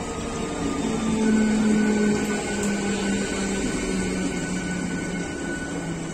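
An Indian Railways EMU electric local train passing close by: the rumble of its wheels on the track with a steady electric whine from its traction motors, drifting slightly lower in pitch. It is loudest about a second or two in, then eases a little.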